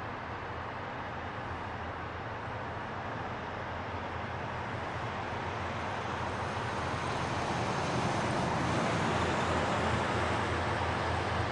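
EMD SW1200 switcher locomotive's two-stroke diesel engine running as the locomotive approaches, growing steadily louder.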